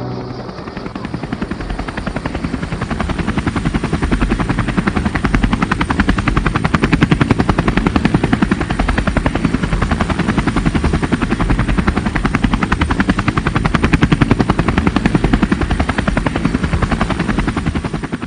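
Helicopter rotor chopping in a fast, even beat, swelling over the first few seconds and then holding steady.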